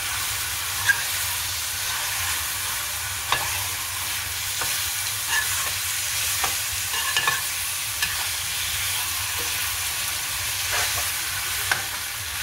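Marinated chicken pieces sizzling in oil in a stainless-steel pan on a low flame, a steady hiss. A metal spoon stirs them, clinking and scraping against the pan at irregular moments.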